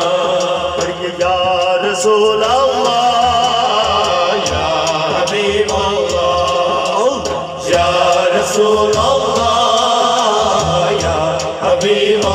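A man's voice singing a naat in a long, wavering melody without clear words, over a hand-played barrel drum keeping a steady beat, all heard through a loudspeaker system.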